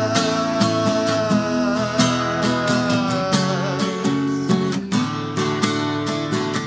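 Music: an instrumental passage of a song, with acoustic guitar strumming steadily. A long held melody note sounds over it through the first half, then fades out.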